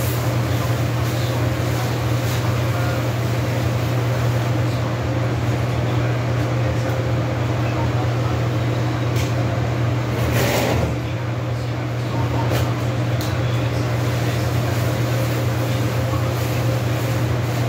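A steady low machine hum, with faint scrapes and clicks of a rag being scrubbed over a tile floor and a short watery swish about ten seconds in as the rag is worked in a bucket.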